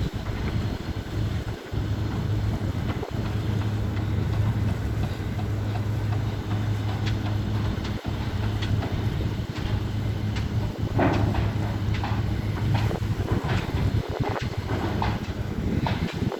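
Houseboat's engine running steadily underway with a low hum, with wind buffeting the microphone; a few short clicks or knocks come in the last few seconds.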